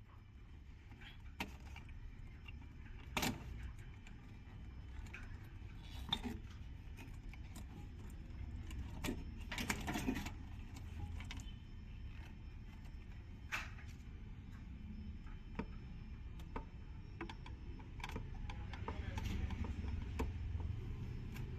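Scattered metallic clinks and knocks of tools and metal parts being handled during washing machine repair work, over a steady low rumble.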